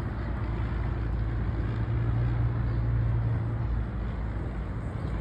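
Low-flying airplane passing overhead: a steady low engine drone with a humming tone that swells about two seconds in and eases off a little after three seconds.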